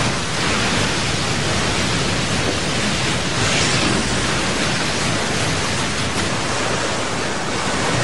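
Heavy storm surf and surging seawater rushing and crashing, a steady loud noise of water that swells slightly about three and a half seconds in.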